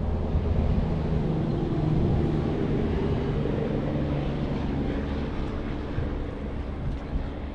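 A steady engine drone with a low hum, loudest a couple of seconds in and then easing off.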